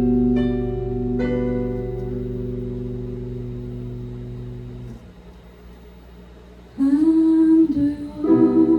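Live band's held chord, with a few plucked guitar notes, ringing out and fading over about five seconds. After a short lull a singer's voice comes in with two held notes near the end.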